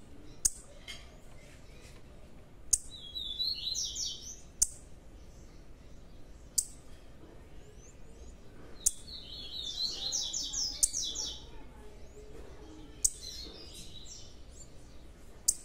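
Small caged finches, among them a young blue-black grassquit, twittering in bursts of quick high notes, the longest about three seconds in and about nine seconds in. Sharp taps, the loudest sounds, come about every two seconds.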